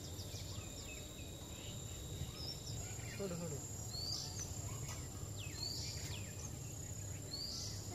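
Outdoor ambience: a steady high-pitched insect drone, with a bird repeating a short falling call about every two seconds from the middle on.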